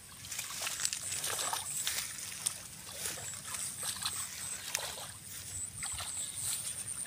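Shallow muddy water sloshing and splashing in small irregular bursts as hands and feet grope through a rice-field puddle for fish.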